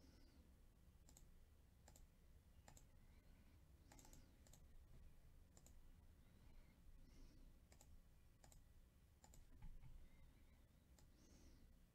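Near silence broken by faint, irregular computer mouse and keyboard clicks, about one or two a second.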